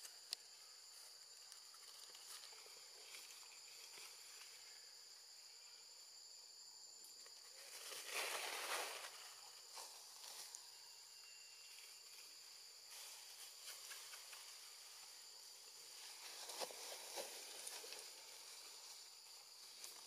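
Steady high-pitched insect drone, a constant two-note hum, with a brief louder rush of rustling noise about eight seconds in and a smaller one near seventeen seconds.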